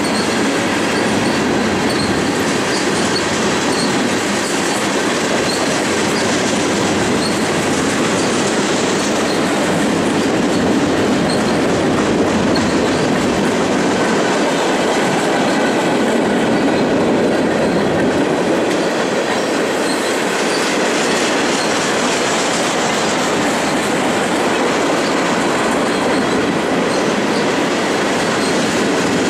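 Freight train cars rolling past: a steady rumble of steel wheels on rail, with a clickety-clack of wheels over the rail joints.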